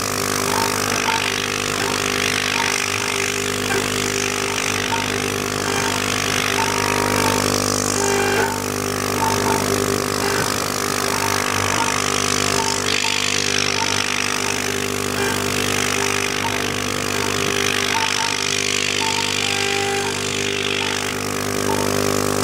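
A 6040 CNC router's spindle runs steadily while its end mill cuts aluminium: a continuous hum made of many fixed tones under a hiss of cutting noise, with short chirps repeating about twice a second.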